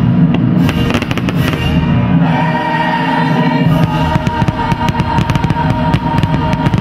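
Aerial fireworks bursting and crackling in quick succession over the show's music, with a sustained high note in the music from about two seconds in.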